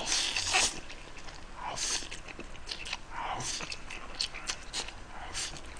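A man slurping up forkfuls of spicy instant noodles and chewing, with several short hissing slurps and small mouth clicks between them.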